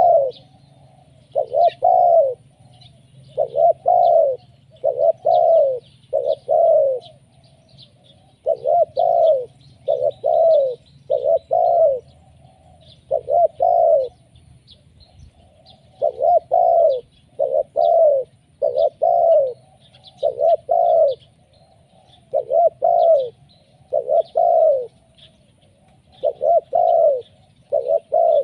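Spotted dove cooing over and over: groups of two or three low, arched coo notes, a new phrase every second or two, with faint high chirps of small birds behind.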